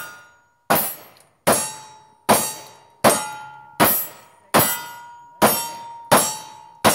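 Nine .45 Colt revolver shots from Uberti 1875 Remington Outlaw single-action pistols, evenly paced about one every three-quarters of a second. Steel targets ring after the hits.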